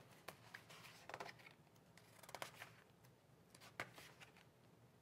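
Faint rustling and light taps of a picture book being handled and opened, its cover and pages moving in a few short, scattered strokes.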